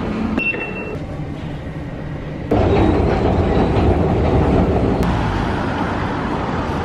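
Steady rumble and clatter of a train, heard from a station escalator. The rumble gets suddenly louder about two and a half seconds in and stays loud.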